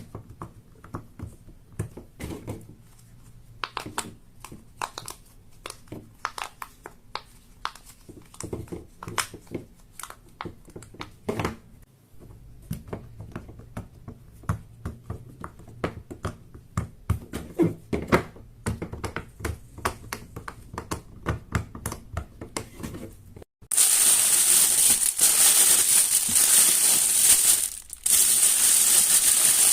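Irregular clicks and pops, several a second, typical of fingers pressing the bubbles of a silicone pop-it fidget toy. About three-quarters of the way through, a sudden cut brings in loud, continuous crinkling.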